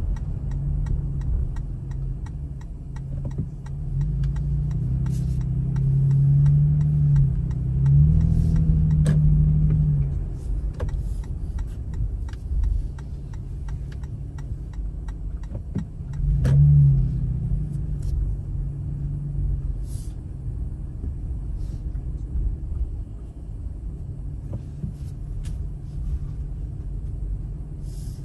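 Car driving, a steady low rumble of engine and tyres. The engine note rises and swells between about five and ten seconds in, and again briefly near seventeen seconds as the car speeds up.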